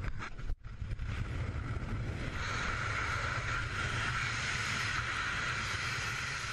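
Steady wind roar over a helmet camera's microphone in skydiving freefall: a low rumble with a hiss that grows stronger about two seconds in. The sound briefly cuts out about half a second in.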